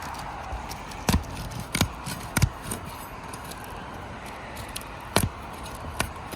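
Asphalt 3-tab shingles being pried apart with a roof snake, the sealant strips breaking loose in several sharp, irregular snaps and clicks, mostly in the first half and twice more later.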